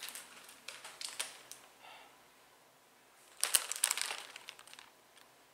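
Plastic wrapper of a Sour Patch Kids Oreo cookie package crinkling as it is handled, in scattered crackles with a louder burst of crinkling about three and a half seconds in.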